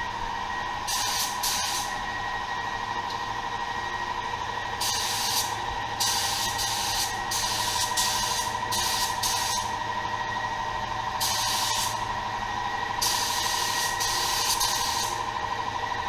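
Gravity-feed spray gun spraying paint in passes: a series of hissing bursts, each one to two seconds long, as the trigger is pulled and released. A steady whine runs underneath throughout.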